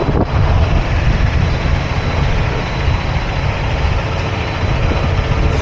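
Semi truck driving, heard from inside the cab: a steady low engine drone with road noise hissing over it.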